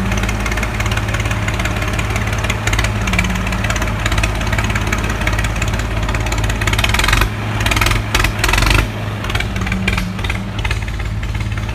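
Tractor diesel engine running steadily close by, a low even rumble. A short stretch of rushing noise comes about seven to nine seconds in.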